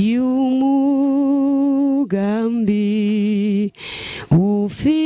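A woman singing a slow Kinyarwanda gospel song unaccompanied into a microphone, holding long notes with vibrato and stepping down to a lower note about two seconds in. She breaks off twice for quick breaths near the end.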